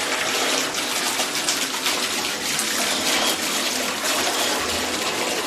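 Bathtub tap running, water pouring steadily into the tub as it fills.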